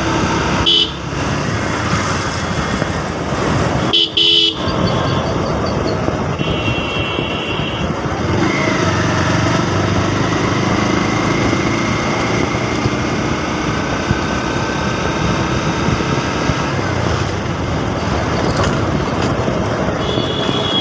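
Motorcycle running along a road with steady engine and wind noise. Vehicle horns toot briefly several times, with one held for about a second and a half about six seconds in.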